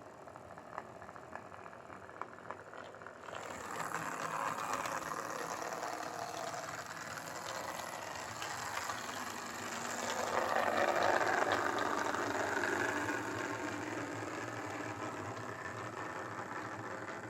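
Lima HO scale Class 33 model locomotive running on track, its repaired pancake motor whirring with light clicks from the wheels. It gets louder about three seconds in and is loudest around the middle, as if passing close.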